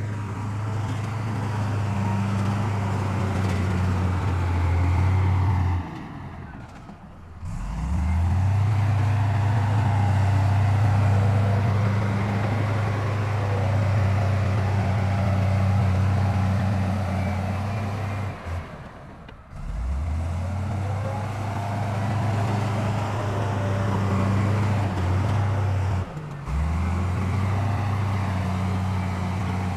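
Heavy diesel earthmoving machinery running with a steady, low engine drone. Three times it briefly drops away, and each time it picks back up with a rising pitch.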